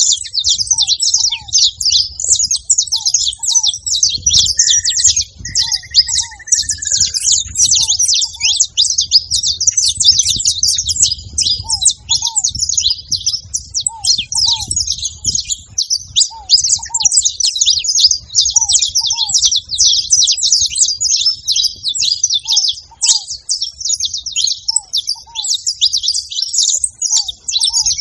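Several saffron finches chirping together in a dense, unbroken chatter of quick high notes. A lower two-note call repeats every few seconds, a short falling whistle sounds about five seconds in, and a low rumble runs underneath.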